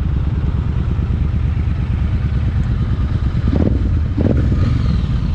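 Parallel-twin motorcycle engine running steadily under way, its exhaust pulsing evenly.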